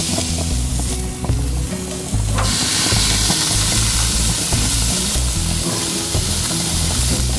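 Deer loin searing on a hot gas grill, sizzling steadily, louder from about two seconds in, with background music carrying a bass line underneath.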